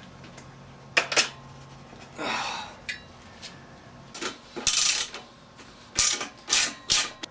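Metal hand tools, a ratchet and socket wrench, clinking and knocking against a dirt bike's frame and exhaust while the exhaust mounting bolts are undone. Scattered sharp clinks, a few close together, with a brief soft rustle about two seconds in.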